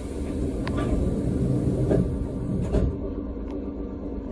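Streetcar doors closing: a hiss of compressed air runs for nearly three seconds, with a couple of clicks, and stops sharply with a thud as the doors shut. The tram's steady low hum runs beneath.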